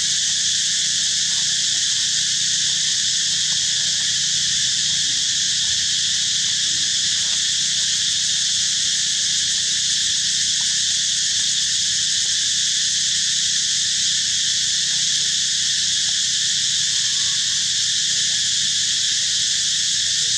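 Steady chorus of insects, a dense unbroken high buzzing hiss that holds an even level throughout.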